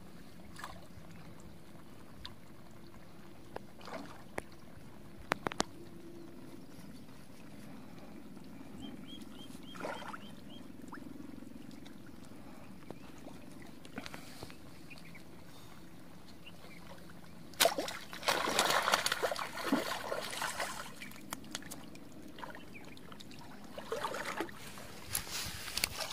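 A hooked fish splashing and thrashing at the water's surface: a sudden loud burst of splashes about two-thirds of the way through, then more splashing near the end as it is drawn out of the water.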